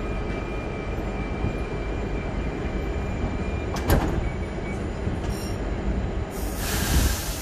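Double-deck electric train standing at the platform with its motors and equipment rumbling steadily. A high steady tone sounds for about three and a half seconds while the sliding doors close, and the doors knock shut just before four seconds in. A loud hiss of air starts near the end.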